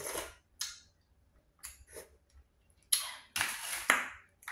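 Close-miked slurping and sucking of seasoned juice from a boiled blue crab shell, in several short hissy bursts with quiet gaps, the longest near the end.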